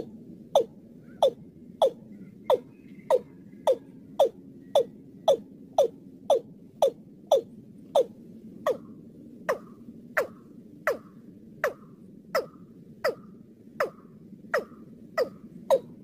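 Watercock (Gallicrex cinerea) calling: a steady series of short, sharp notes, about two a second, each dropping in pitch.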